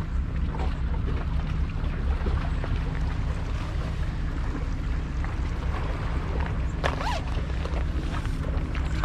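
Steady wind rumble on the microphone over sea washing against the rocks, with a short high squeak about seven seconds in.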